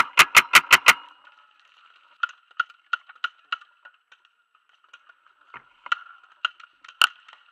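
A paintball marker fired in a rapid burst of six shots in the first second, followed by scattered, quieter shots of paintball fire, one louder near the end.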